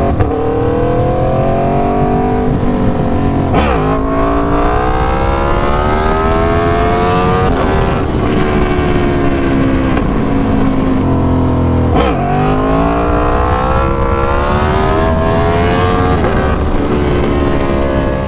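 Aprilia Tuono V4 1100 Factory's V4 engine under hard acceleration, rising in pitch through the revs and upshifting with a sharp crack and sudden drop in pitch about 4 seconds in and again about 12 seconds in, then pulling up through the revs once more.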